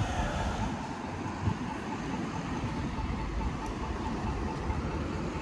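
City street traffic noise at a busy intersection: a steady wash of passing cars, with a faint, rapidly repeating beep in the background.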